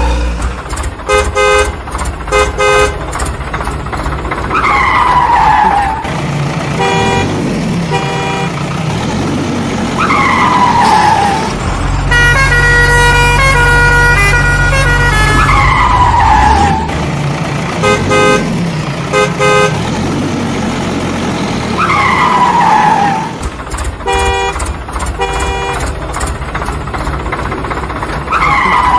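A looping track of vehicle sound effects: short repeated horn toots, a falling whistle-like tone that recurs every five or six seconds, and a steady horn blast with a low engine rumble in the middle.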